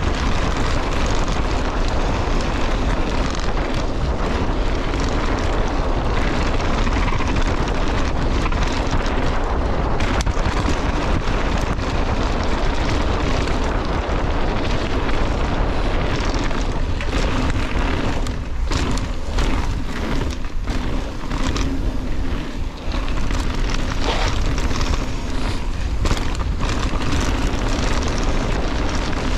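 Wind rushing over the microphone and mountain bike tyres rolling over loose gravel and slate on a downhill track, with frequent knocks and rattles from the bike over stones in the second half.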